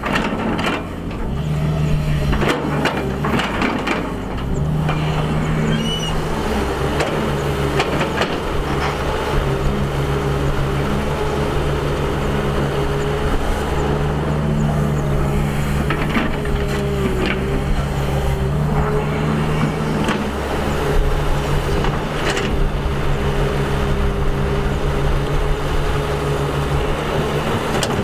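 Excavator's diesel engine running steadily under working load, its pitch dipping and recovering now and then, with occasional short knocks.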